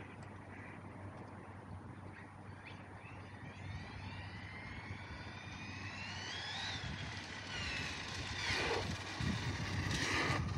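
Arrma Mojave 6S RC truck's brushless motor and drivetrain whining as it accelerates hard in a drag run. The high whine rises in pitch for a few seconds, then drops away.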